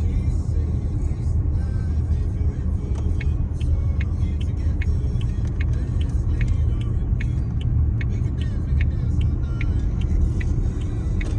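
A car driving along a road, heard from inside: a steady low road and engine rumble. From about three seconds in there is a regular, light ticking, two or three ticks a second.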